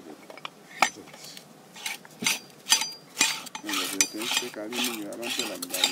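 Metal clinks and short scraping sounds, repeating about every half second, as hand-pump cylinder parts and tools are handled and fitted together. Voices murmur in the background.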